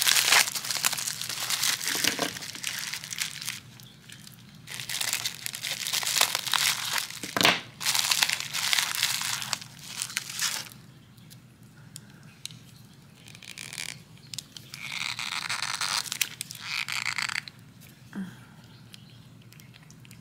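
Plastic bubble wrap crinkling and crackling as hands pull it off small nail polish bottles. It is dense for about the first ten seconds, then gives way to quieter, scattered rustles and light handling clicks.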